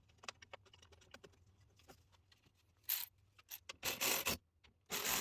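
Light ticks, then several short scrapes and rubs of hands, tools and parts as small 10 mm bolts are fitted back into a car's air intake.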